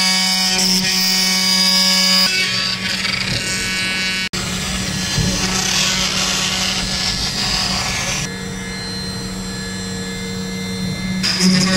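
CNC router spindle running at a steady high speed, its hum holding one pitch while the bit cuts into wood with a rough, hissing noise. The cutting sound changes abruptly a few times and cuts out for an instant about four seconds in.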